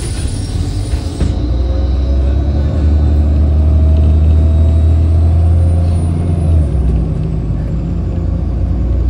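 MAZ-203 city bus pulling away from a stop, heard from inside: a hiss of air that cuts off about a second in, then the engine's low drone building under acceleration, dipping and picking up again about seven seconds in.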